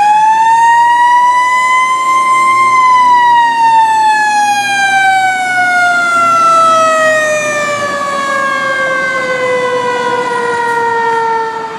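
Fire truck siren winding up to a peak about two and a half seconds in, then slowly winding down, its pitch falling steadily until it fades near the end.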